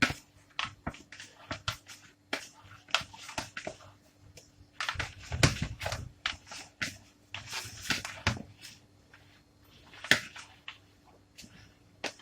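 Hands kneading a soft yeast dough on a floured board: irregular slaps and soft knocks, with a heavier thump about five seconds in.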